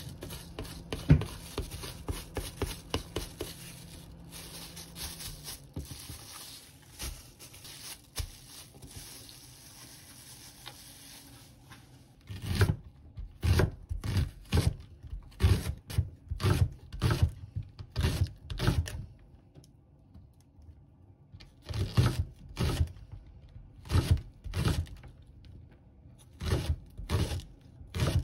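A plastic spatula scraping and pressing minced garlic flat inside a crinkling plastic bag, with small scrapes and rustles. About twelve seconds in, a santoku knife starts chopping green onion on a plastic cutting board in steady knocking strokes about two a second, pausing briefly about halfway through.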